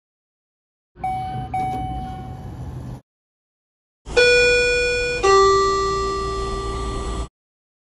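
Two quick, soft dings from a Westinghouse elevator about half a second apart over a low hum. After a short pause, a Schindler 500A elevator's electronic chime sounds two falling tones, high then low, the low tone held for about two seconds, with the car's indicator showing down.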